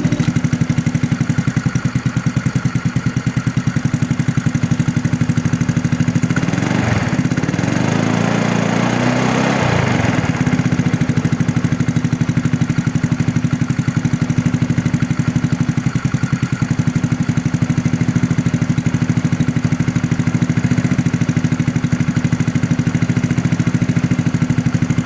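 A 32-year-old SYM Dio scooter's engine idling steadily. It is revved briefly from about six and a half to ten seconds in, then settles back to idle.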